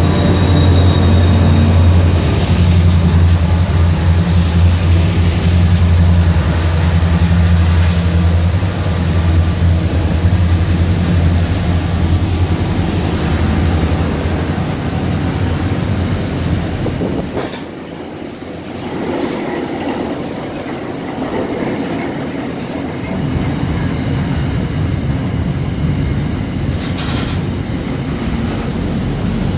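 Pacific National freight train passing close: the locomotive's diesel rumble and loaded container wagons rolling by, with wheels clattering on the rails and a faint high wheel squeal. The deep rumble eases a little over halfway through, leaving a lighter rolling clatter of the wagons.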